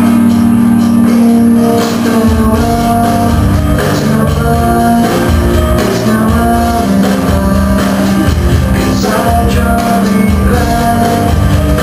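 Rock music led by guitar, with a heavy low beat that comes in about two seconds in.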